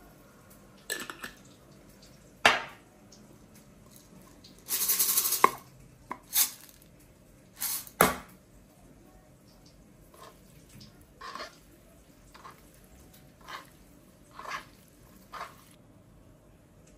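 Small glass spice jars clinking and knocked down on the countertop: a few sharp knocks, a dense rattle lasting under a second about five seconds in, then lighter taps.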